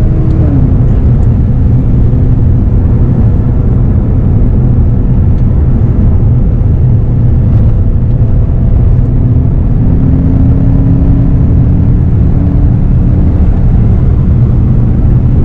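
BMW E92 M3's V8 with an Akrapovic exhaust running under steady cruise, heard from inside the cabin over road rumble. The engine note drops slightly about half a second in and climbs a little again around ten seconds in.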